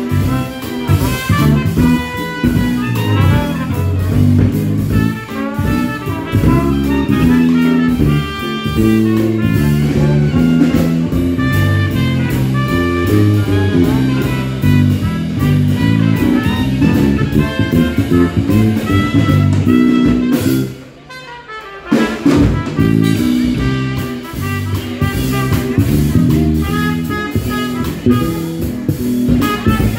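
Live Dixieland jazz band playing: trumpet, trombone and clarinet over electric bass and drum kit, with the reed player on saxophone near the end. The music drops out for about a second and a half around two-thirds of the way through, then comes back in.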